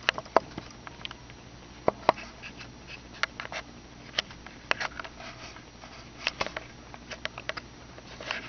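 Small kittens scrabbling and pattering about, giving irregular light clicks and taps of paws and claws.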